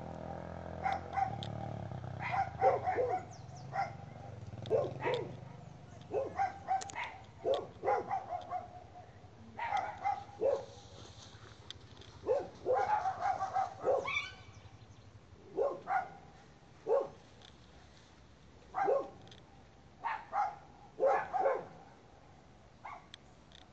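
A dog barking repeatedly, in short barks that come singly or in quick runs of two or three at irregular gaps.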